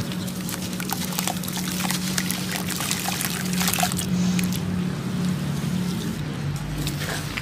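Water splashing and trickling as hands squeeze and crumble wet sand-cement chunks in a metal basin of water, with many small splashes over the first few seconds that thin out after about four seconds. A steady low hum runs underneath.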